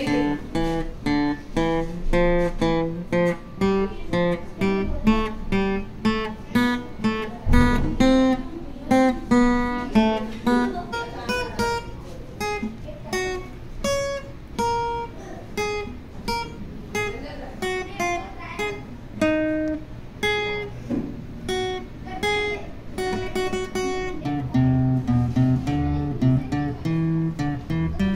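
Acoustic guitar picked one note at a time, playing a melody of separate plucked notes that ring and die away. Near the end, deeper bass notes come in under the melody.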